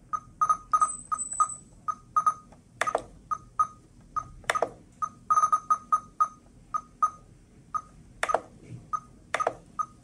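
RadioLink T16D radio transmitter giving short, high key beeps as its rotary dial is turned and pressed through a menu list, in irregular quick runs. A few sharper clicks come in between.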